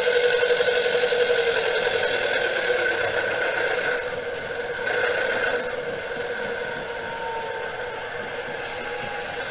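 Model train, a BB301 diesel locomotive model hauling wagons, running on the layout track with a steady mechanical hum and rattle. It fades gradually as the train moves away, with a brief louder patch about five seconds in.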